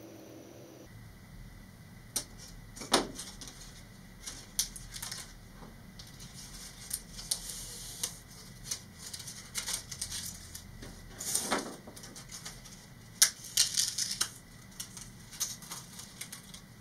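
Thin vacuum-formed plastic wrap crackling and clicking as it is bent and the scored waste strip is snapped and peeled away from it, with irregular sharp snaps, a few of them loud.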